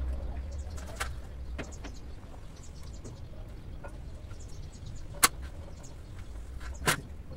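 Hand work at a truck cab's rear window, where the glass and its trim strip are being fitted into the rubber seal: a few sharp clicks and knocks, the loudest about five seconds in and another near the end, over a low steady rumble and faint bird chirps.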